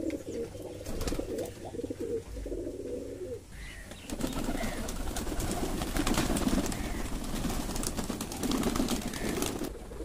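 Domestic pigeons cooing, low repeated coos in the first few seconds. From about four seconds in, a busier flutter of wings and birds moving joins the cooing.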